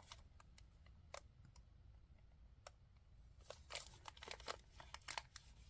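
Faint crinkling and light clicks of a small plastic bead bag being handled and opened, growing busier about three and a half seconds in.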